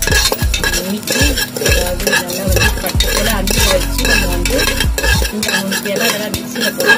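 Spoon stirring and scraping fenugreek, mustard and cumin seeds as they dry-roast in the bottom of an aluminium pressure cooker, in quick repeated strokes.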